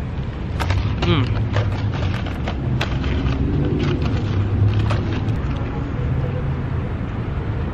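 Steady low rumble of road traffic, with scattered faint clicks over the first few seconds and a brief low murmur a few seconds in.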